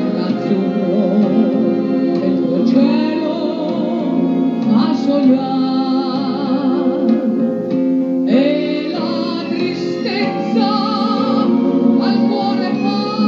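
A woman singing with wide vibrato on held notes over a live band accompaniment.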